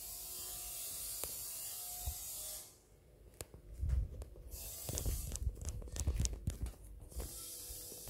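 A steady hiss, broken for a few seconds by a run of irregular sharp clicks and low knocks. The hiss comes back near the end.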